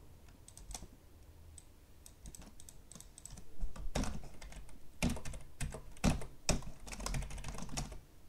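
Computer keyboard typing and mouse clicks while a spreadsheet is being edited. There are scattered clicks at first, then busier bursts of keystrokes from about four seconds in.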